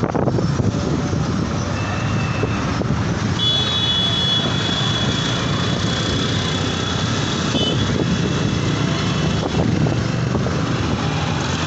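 Steady rumble of road traffic, with a thin high tone held for about four seconds from about three and a half seconds in.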